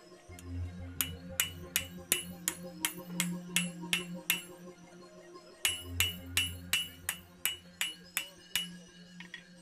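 Hand hammer blows on a red-hot railroad spike on a steel anvil, with the anvil ringing after each strike. The blows come steadily at about three a second in two runs, broken by a pause of about a second and a half near the middle.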